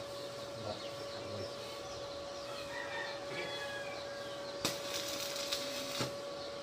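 Arc welding on a steel fence: the arc crackles in short stretches, the loudest a little past halfway, over a steady hum.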